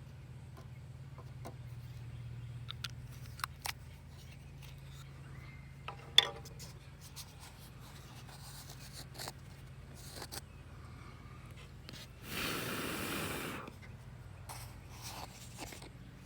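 Small clicks, taps and scrapes of hands handling a plastic trim piece during a super glue and baking soda repair, with a sharp click about six seconds in and a burst of hiss lasting over a second around twelve seconds in, over a steady low hum.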